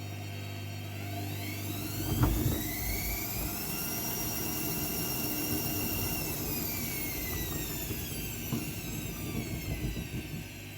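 AEG Lavamat W 1450 washing machine motor and drum speeding up with a rising whine, holding speed for a couple of seconds, then slowing with a falling whine. A thump comes about two seconds in, and the wet towels knock irregularly in the drum near the end.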